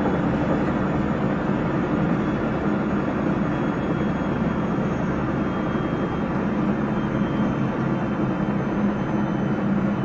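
Running sound of a JR Central 373 series electric multiple unit (set F2) heard from inside the passenger car: a steady rumble of wheels on rails with a constant low hum, even throughout.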